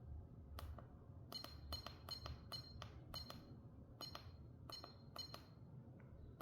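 A quick series of small, sharp clicks, about a dozen and often in close pairs, each with a brief bright ring: the push buttons of a homemade electronics gadget being pressed.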